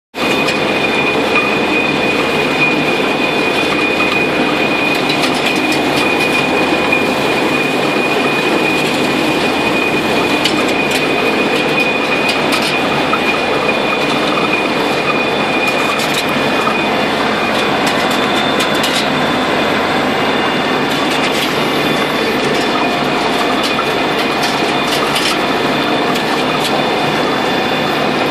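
Carrot harvester running, its web conveyors and elevator carrying carrots and soil: a steady mechanical rattle with a constant high whine and a few sharp knocks.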